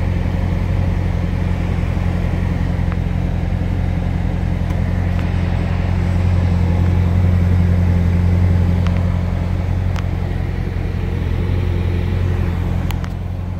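Chevrolet Camaro Z/28's 7.0-litre LS7 V8 idling steadily, heard from inside the cabin, with the air-conditioning blowing and a few faint clicks.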